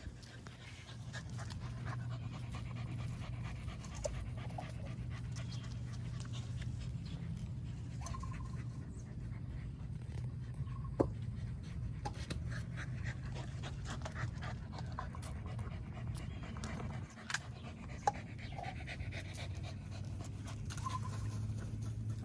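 A corgi panting steadily close by.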